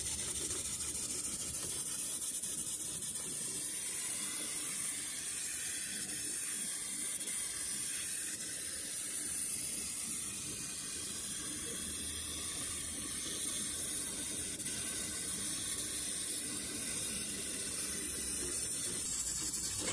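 Fiber laser cutting head cutting holes in 3 mm mild steel plate: a steady, high hiss of the assist-gas jet and the cut.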